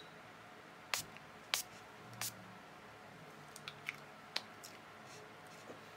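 Pump bottle of matte-finish makeup setting spray misting the face three times in quick succession, each a short hiss. A few faint small clicks follow.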